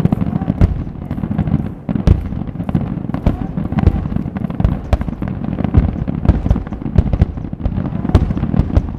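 Fireworks finale: a dense, nonstop barrage of aerial shells bursting, many sharp bangs in quick succession over a continuous low rumble.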